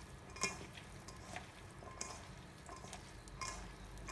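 Hands squeezing and tossing oil-and-vinegar-dressed shredded cabbage, carrot and cucumber in a stainless steel bowl: faint wet rustling and crunching strokes, about one every three-quarters of a second.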